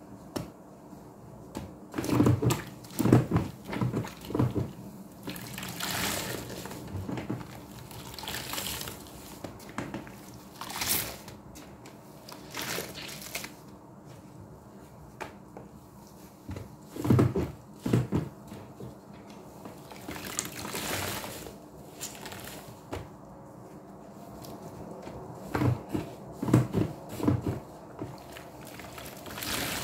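Sponges squeezed and pressed in a plastic tub of soapy water: clusters of wet squelches, with hissing spells of water streaming out of the sponges in between.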